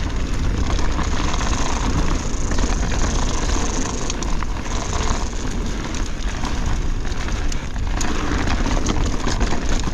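Full-suspension mountain bike (2024 Pivot Switchblade) ridden fast down a rocky dirt trail: steady tyre rumble and wind rush on a chest-mounted action-camera microphone, with scattered clicks and knocks from the bike over rough ground.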